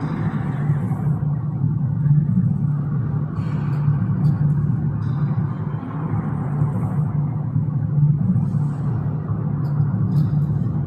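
Loud, steady low rumbling drone with a faint hiss and a few soft ticks above it.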